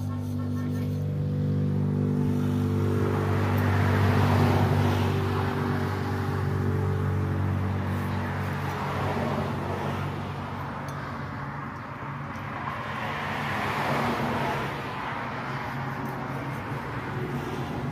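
Motor vehicle engine running steadily, with a louder rushing noise that swells twice, about four seconds in and again near fourteen seconds.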